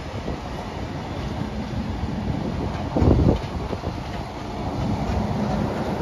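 Passenger carriages of a train rolling across a concrete overbridge, wheels clattering steadily on the rails, with a brief louder low rumble about three seconds in.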